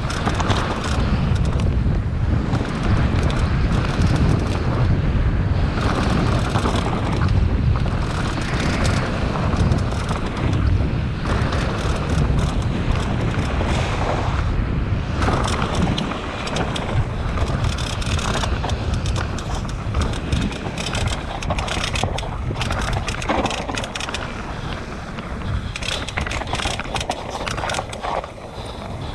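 Nicolai Nucleon 16 mountain bike descending a rough downhill track at speed: wind buffeting the microphone, tyres on dirt and rock, and a steady rattle. Sharp clicks and knocks run throughout, among them the popping that the rider puts down to a faulty damper in the RockShox Zeb fork.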